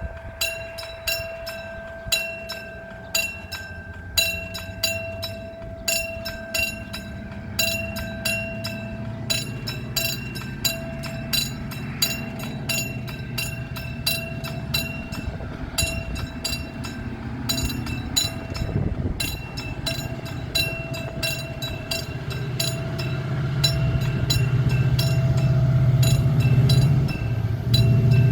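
Level-crossing warning bell ringing in steady strokes about once a second, its strokes crowding closer from about a third of the way in. Under it a Mugunghwa-ho passenger train's rumble grows as it approaches and becomes loud as the train passes over the crossing in the last few seconds.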